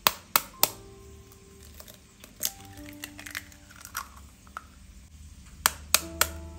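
Eggs tapped to crack their shells: three sharp taps in the first second, another about two and a half seconds in, and three more near the end, over background music.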